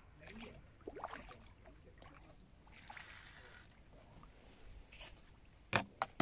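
Water splashing and sloshing in short bursts as a hooked carp is played on a feeder rod. A sharp knock near the end is the loudest sound.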